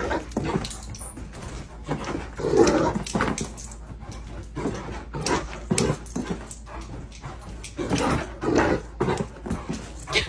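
A dog whining and whimpering in a string of short, repeated cries.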